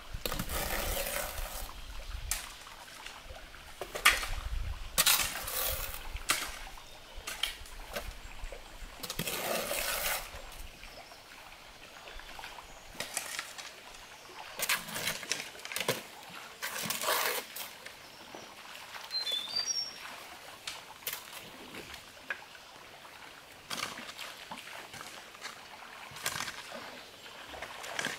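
A shovel scraping and scooping loose soil out of a wheelbarrow and tipping it onto the ground: a rough rasp every second or two, with a sharp knock about four seconds in.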